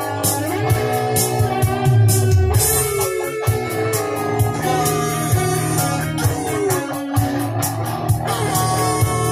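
Electric guitar, a sunburst Les Paul-style, playing a rock song with notes that bend in pitch, over a steady drum beat.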